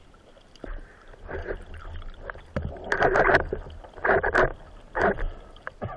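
Underwater water-movement sound through a camera housing: a series of swishing strokes about once a second, fainter at first and stronger from about halfway.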